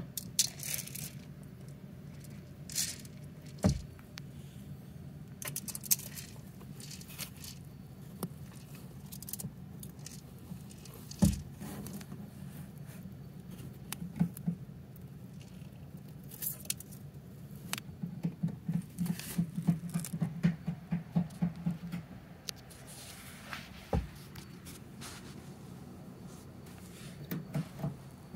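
A pet rabbit moving about at close range: soft scuffs, scrapes and scattered clicks against cardboard and carpet, with a run of quick small clicks lasting a few seconds about two-thirds of the way through.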